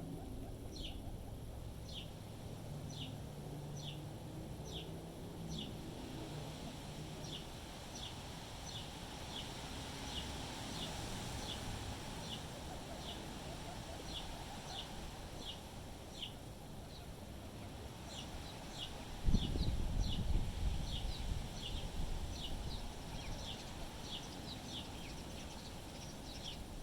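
A small bird chirping over and over, short falling chirps at about two a second, over wind rumbling on the microphone, with a stronger gust about two-thirds of the way through.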